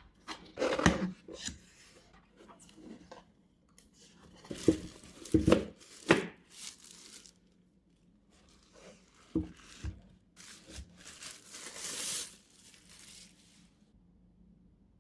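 Product packaging being opened by hand: irregular tearing and crinkling, with a few sharp knocks and a longer rustle near the end.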